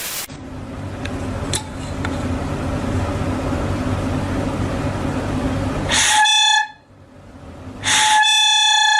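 Two short, steady, horn-like honks, the second longer, each opening with a sharp burst, after several seconds of steady background noise.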